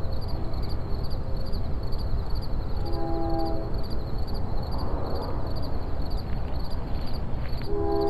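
Train horn sounding a chord of several tones: a short blast about three seconds in, and a long one starting near the end. Underneath are a steady low rumble and crickets chirping several times a second.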